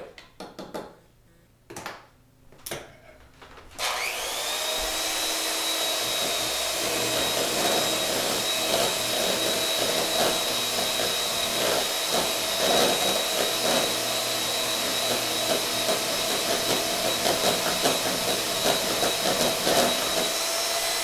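Electric hand mixer beating pancake batter: it starts about four seconds in and runs steadily, with a couple of short knocks before it starts.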